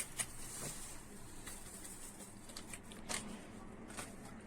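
Faint rustling and a few light clicks as a sachet of vanilla sugar is opened and emptied into a mixing bowl.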